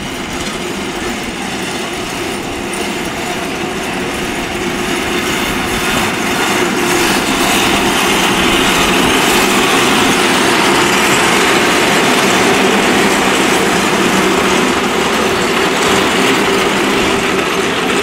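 Wheeled metal fire barrels, burning braziers on carts, rolling and scraping along the tarmac road with a steady grinding rattle. The rattle grows louder as they pass, loudest around the middle.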